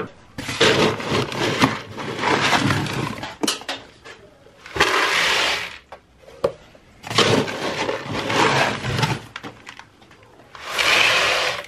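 Goat feed pellets being scooped out of a plastic bucket with a plastic scoop and poured, rattling and pouring in several bursts with short pauses between.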